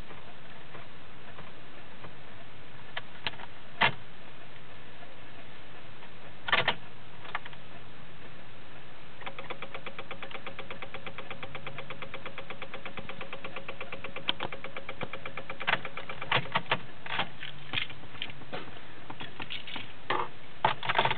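A 2006 Honda Civic failing to start as the key is tried: a few single clicks, then a rapid, even chatter of clicks with a steady tone under it for about seven seconds, followed by more irregular clicks and knocks.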